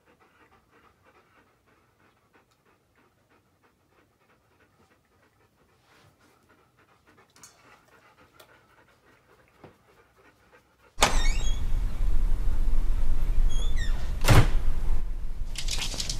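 Dog panting, starting abruptly and loud about eleven seconds in after a near-quiet stretch of faint ticks, with a single sharp thump partway through.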